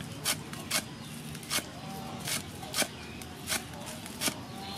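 Steel cleaver chopping green onions on a thick wooden chopping board: sharp knocks of the blade on the wood, about two a second at uneven spacing.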